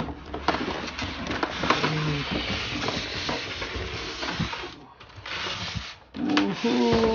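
Toy box packaging being opened by hand: cardboard and plastic rustling and scraping, with many small clicks and crackles.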